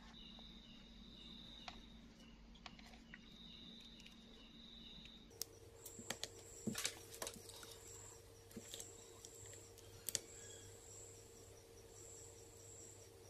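Mostly quiet: a few small clicks and taps about six seconds in and again near ten seconds as a USB cable is plugged into a phone's charging-port board and multimeter probes are set on it. Faint high-pitched chirping and pulsing tones in the background.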